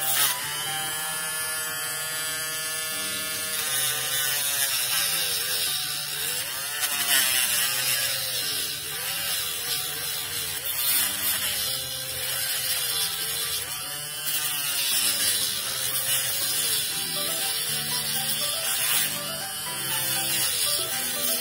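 Handheld mini grinder with a thin cutting disc running as it trims the edges of a small plastic Mini 4WD wheel. Its motor whine dips in pitch and recovers again and again as the disc bites into the plastic.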